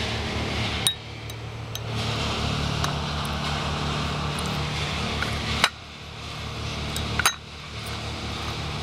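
A steady low hum under an even background noise, broken three times by a sharp click or clink, the level dipping briefly after each.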